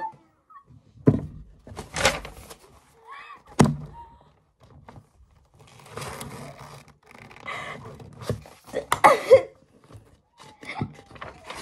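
Spiral-bound sketchbook being handled on a desk: several sharp knocks and thunks as the book is moved, with paper rustling as pages are turned.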